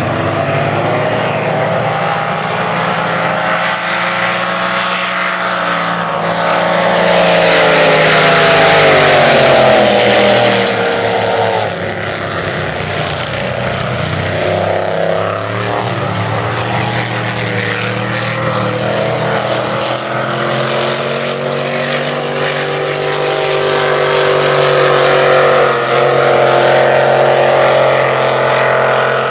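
Several supercharged unlimited displacement race boats' engines running flat out. Their pitch rises and falls as the boats pass, loudest with a rushing hiss about seven to eleven seconds in.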